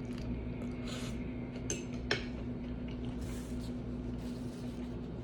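A few light clinks and taps of cutlery and dishes at a meal table, with a steady low hum underneath.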